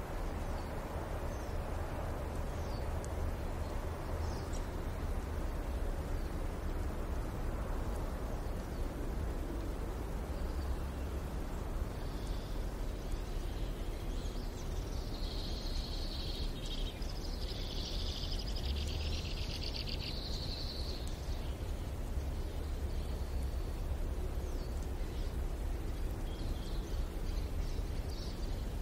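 Rural village ambience: small birds chirping and singing over a steady low hum of distant traffic. The birdsong grows denser for several seconds around the middle.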